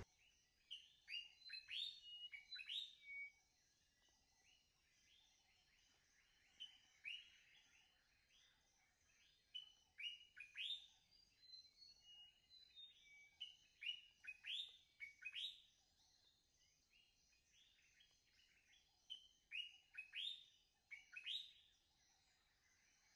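Faint wild bird chirps: short calls, many sliding downward in pitch, coming in scattered clusters of a few at a time.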